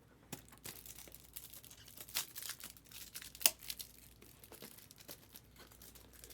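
Crinkling of plastic or foil wrapping and trading cards being handled, a run of small crackles and clicks with two sharper snaps, about two and three and a half seconds in.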